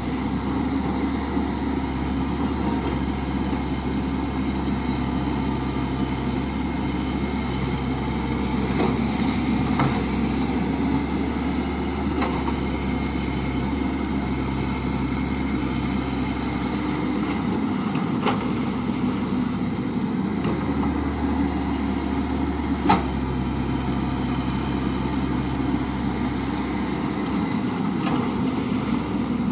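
Komatsu excavator's diesel engine running steadily, its low tone shifting a few times, with a single sharp clank about three-quarters of the way through.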